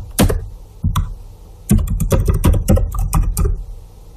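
Computer keyboard keystrokes: a few separate key presses, then a quick run of about a dozen keys as a username and password are typed in.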